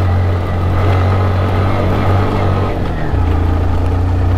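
Honda CG single-cylinder four-stroke motorcycle engine running under load on an uphill climb. Its note changes about three seconds in.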